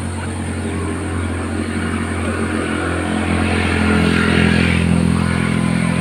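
An engine running with a steady hum, growing louder to its peak about four to five seconds in and then easing off.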